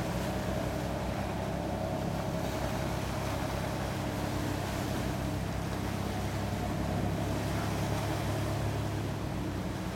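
Boat engines running with a steady low drone and a higher steady hum over it, swelling slightly near the end.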